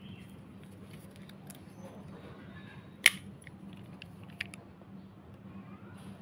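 Faint rustling as a plastic-wrapped air layer on a tree branch is handled, with one sharp click about three seconds in and a smaller one later. A steady low hum runs underneath.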